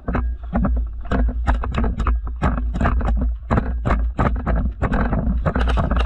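Running footfalls on grassy ground, about three to four steps a second, heard through a body-worn camera jolting with each step, over a steady low rumble on the microphone.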